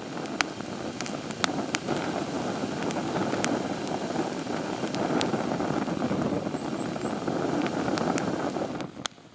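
A steady rushing noise that stops abruptly about nine seconds in, over scattered sharp crackles of campfire wood.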